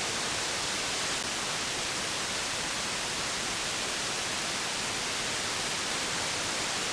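CB radio receiver hissing with steady static on an empty channel: open-squelch band noise with no station coming through between transmissions.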